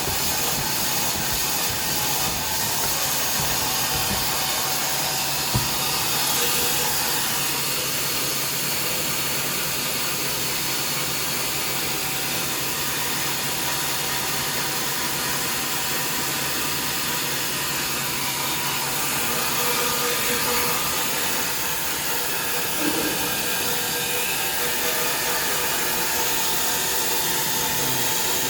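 XY-AI-400 automatic toilet paper band saw cutting machine running steadily, a continuous hiss of the band saw and its motor, with a couple of short sharp knocks.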